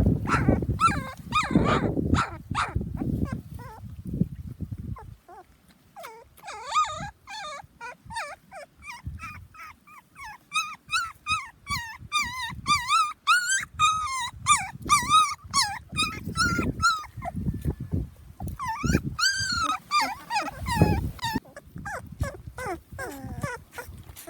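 Puppies whining and whimpering: many short, high, wavering cries, often overlapping, from about six seconds in to near the end. Rough low noises come in the first few seconds.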